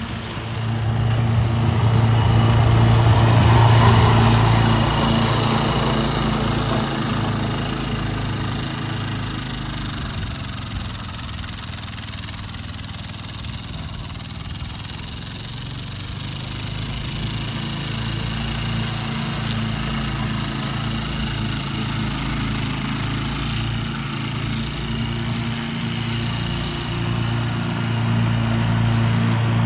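Wolf ride-on lawn mower's engine running steadily as it mows in top gear. The sound is loud at first, fades midway as the mower moves off across the field, and grows louder again near the end as it comes back.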